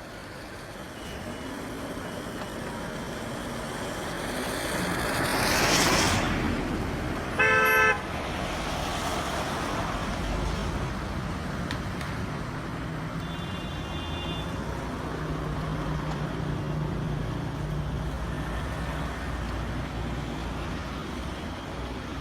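Street traffic: a vehicle passes close by, swelling to about six seconds in, followed by a single short car horn toot, the loudest sound. Engines keep running in the traffic after it.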